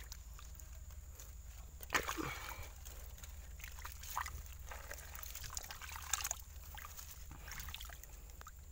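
Bare hand scooping and digging through mud in shallow ditch water, making irregular sloshing and splashing sounds, the loudest about two seconds in. The hand is digging out the burrow of a hooked eel snagged among roots.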